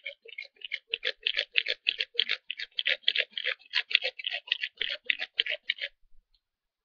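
Bow drill at work: the yucca spindle spinning and grinding in the yucca hearthboard's notch under the bow, a fast even rhythm of short scrapes, about five a second, that stops about six seconds in. This is the boring-in stage that builds up the hot dust pile for an ember.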